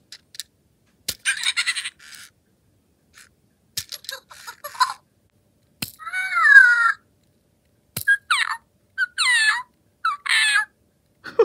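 WowWee Fingerlings 2016 baby monkey toys reacting to taps on the head with short electronic squeaks and chirps. A few spaced-out bursts, each led by a faint tap, including a wavering call about six seconds in and three quick falling chirps near the end.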